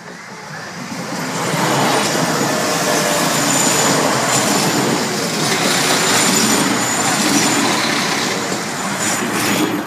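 London Midland Class 172 diesel multiple unit passing close by: the noise of the train builds over the first second or two, then holds loud and steady as the carriages run past, easing off near the end.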